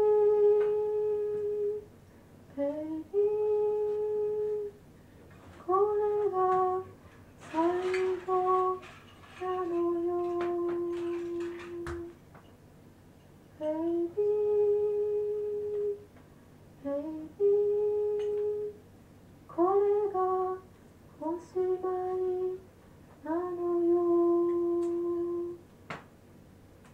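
A voice humming a slow melody in long held notes, each sliding up into its pitch, with short pauses between. The recording is a lo-fi live tape. A patch of hiss and clicks comes in a third of the way through, and there is a single click near the end.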